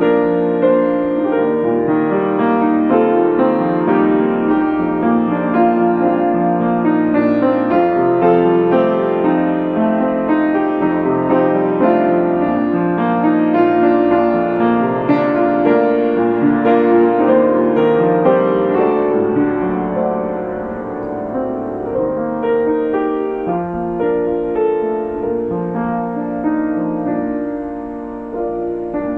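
Upright piano playing a hymn arrangement, melody over full chords. It grows a little softer for a few seconds past the middle and again near the end.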